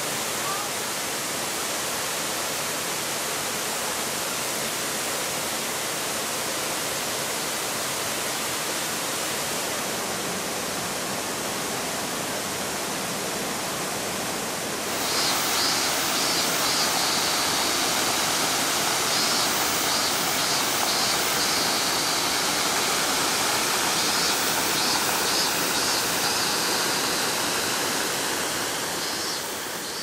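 Nabegataki waterfall's thin curtain of water pouring into its pool, a steady rushing hiss. About halfway through it turns louder and brighter, with faint high chirping above it, and it fades out near the end.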